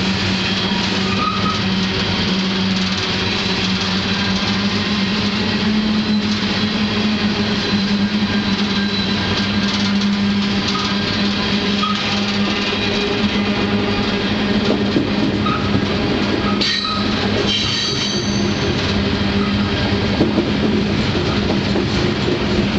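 Freight train running steadily on the track, heard from aboard a moving car: a continuous rumble of wheels on rail under a steady low drone. A few brief high-pitched squeals come a little past the middle.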